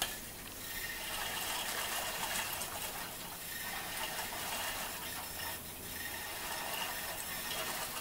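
Steady hissing rush of pressurised air and oil flowing out through the held-open valve of a homemade fire-extinguisher engine pre-oiler, its tank nearly empty of oil.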